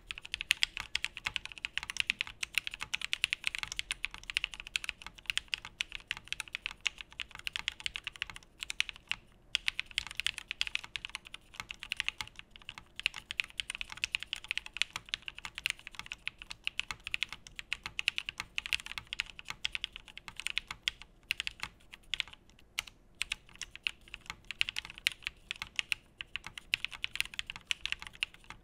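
Continuous fast typing on a Geonworks Frog mechanical keyboard with an aluminum plate and lubed linear switches (Cream POM stems in Cherry Black Retool nylon housings): a dense stream of keystrokes, with a brief pause about nine seconds in.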